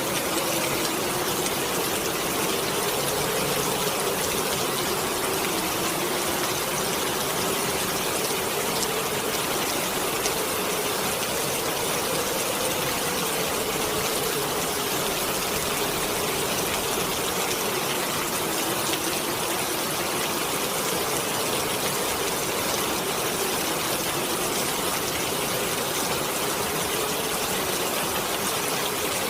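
Heavy rain falling steadily under a howling wind, whose moaning tone slowly rises and falls in pitch.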